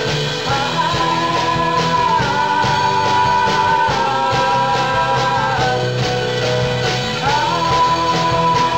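Live folk-rock band: a male singer holding long notes over strummed acoustic guitar, cello and keyboard with a steady beat. The held notes run from about a second in to past the middle, and a new one begins near the end.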